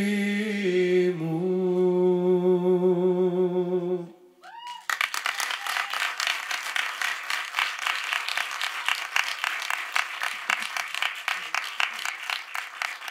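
A live band holds its final chord, slightly wavering, and cuts off about four seconds in. After a brief gap an audience claps steadily to the end.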